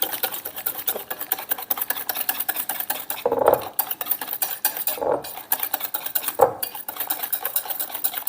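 A utensil stirring thick gochujang chili-paste sauce in a bowl: rapid scraping and clicking against the bowl, with a few louder clinks in the middle.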